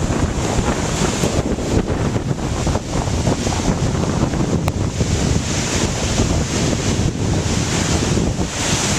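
Strong storm wind buffeting the microphone in heavy gusts, over waves washing on the lake.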